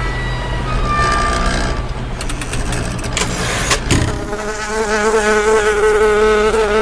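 A steady low hum with scattered clicks. About four seconds in, a loud, steady buzz starts, with a slightly wavering pitch.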